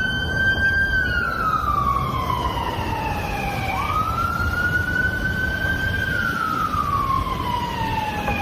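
Fire-engine siren wailing: a slow wail that sinks in pitch, snaps back up a little under four seconds in and falls again, over a low rumble.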